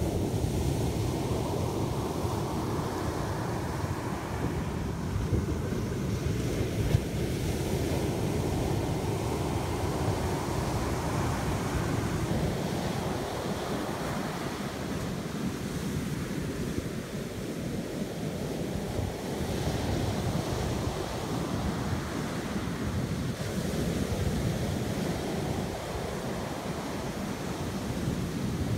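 Ocean surf breaking and washing up a sandy beach, a steady rush that swells and ebbs with each wave every few seconds, with wind rumbling on the microphone.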